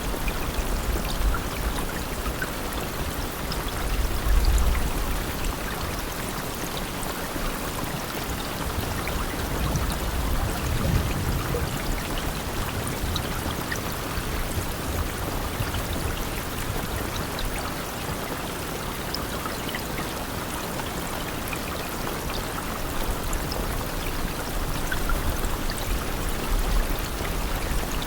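Steady rain: an even hiss with scattered small drop ticks, and a low rumble swelling briefly about 4 and 11 seconds in.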